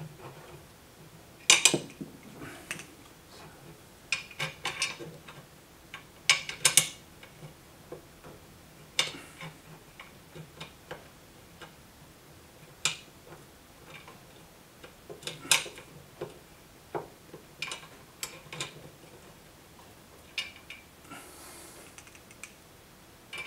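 Irregular metallic clicks and clinks as a steel TV-mount cross bracket is held to the back of a TV and its short screws are turned in with a hand screwdriver. The clicks come in scattered clusters with short pauses between them.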